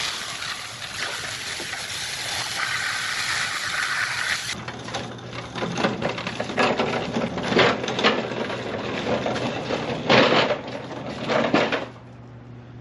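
Water spraying from a hose onto a steel John Deere mowing deck for the first few seconds. Then the deck is rolled on its small wheels across cracked concrete, rattling and clanking irregularly with several louder knocks, and stops about a second before the end.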